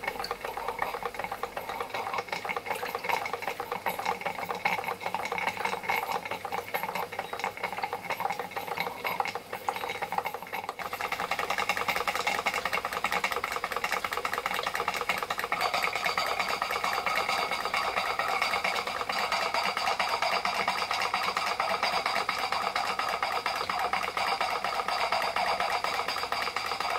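Märklin 16051 compound twin-cylinder stationary steam engine running on live steam: a fast, steady mechanical clatter with the chuff of its exhaust. It turns louder and hissier about eleven seconds in.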